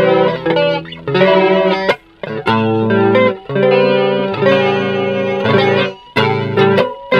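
Electric guitar playing chords through an Ibanez SC10 Super Stereo Chorus pedal, the chorus giving the notes a gentle wavering shimmer. The chords are struck one after another with short breaks between them.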